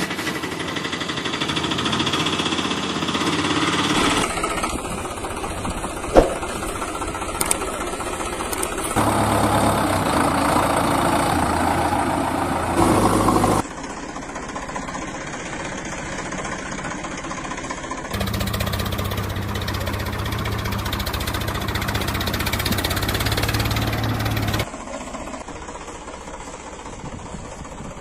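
Engine sounds, idling and running, in several stretches that change suddenly from one to the next, with a single sharp click partway through.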